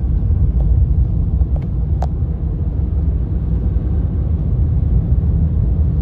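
Car on the move: steady low engine and road rumble, with one sharp click about two seconds in.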